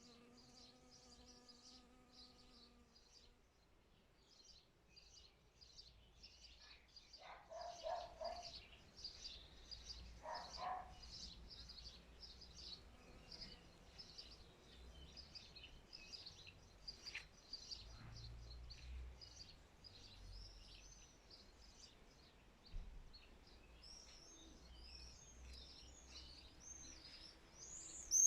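Faint garden birdsong: small birds chirping in quick repeated high notes throughout, with two louder, lower calls about eight and ten seconds in and a livelier run of falling chirps near the end. A faint steady hum sits under the first few seconds.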